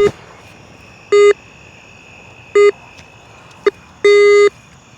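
Metal detector giving its target tone over the dug hole: two short beeps, a brief blip, then a longer beep. It is still signalling buried metal after the buckle-like bracket was taken out.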